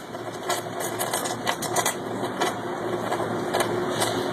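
Welding equipment running with a steady hum, broken by irregular sharp crackles and clicks as the crew tries to strike the electroslag welding arc.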